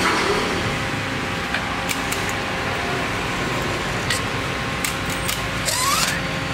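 A few sharp clicks as a fuel pressure gauge's fitting is handled and connected to a motorcycle fuel pump's outlet, over a steady mechanical hum. A short rising whine comes near the end.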